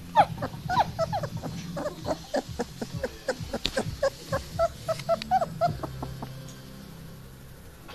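Young puppy whimpering: a rapid string of short, high squeaks, several a second, that die away about six seconds in.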